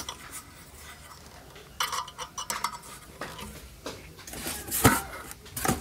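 Handling noise from lifting and moving a large speaker driver in its cardboard box: a few short knocks and clinks with quiet between them, the loudest about five seconds in.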